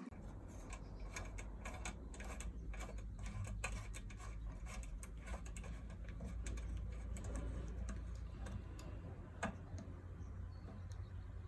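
Irregular light clicks and taps over a steady low hum, with one sharper click near the end.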